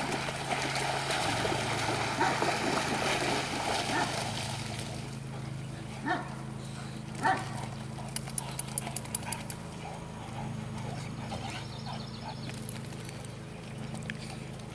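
Several dogs splashing through shallow pond water, then two sharp dog barks about six and seven seconds in. A steady low engine hum runs underneath.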